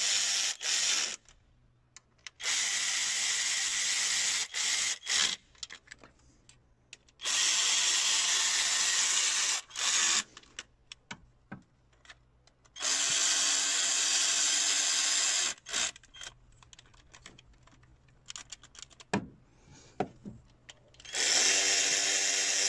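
Handheld cordless power tool driving a socket on an extension, run in about five short bursts of one to three seconds each with a motor whine. Short gaps between the runs hold a few light knocks and ticks of tools on metal.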